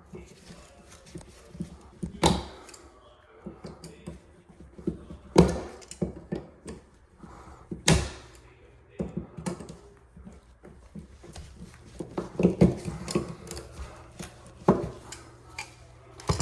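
Screws and hand tools being handled and rummaged through: scattered clinks and light thunks, with a handful of sharper knocks spaced a few seconds apart.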